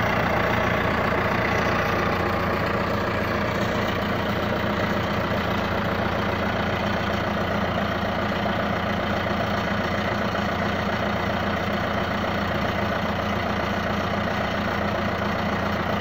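International 125E crawler loader's engine idling steadily and smoothly, "like a kitten", after being started following a long spell sitting.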